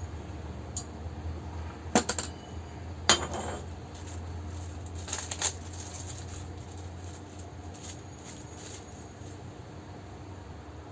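Metal parts of a dismantled demolition hammer clinking and knocking as they are handled: two sharp clinks about two and three seconds in, and a couple of lighter ones a little after five seconds, over a steady low hum.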